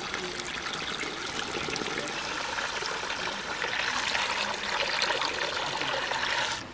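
Water running steadily from an outdoor pipe spout and splashing below it, while starchy rice rinse water is tipped out of an aluminium pot; a little louder in the second half.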